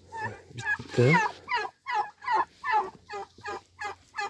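Black turkey hen sitting on her nest giving a run of about ten short, evenly spaced calls while a hand reaches under her into the straw for eggs: the call of a hen disturbed on the nest.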